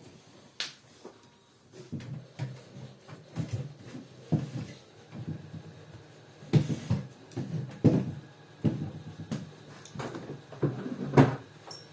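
Irregular clicks, taps and knocks of a small plastic gadget being handled and worked on by hand, with a few louder knocks about two-thirds of the way through and near the end.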